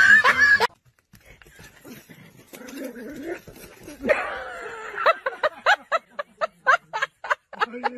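Small dog yipping and whimpering in quick, short high calls, about three a second, starting about four to five seconds in. Before that, a loud whining cry cuts off abruptly less than a second in.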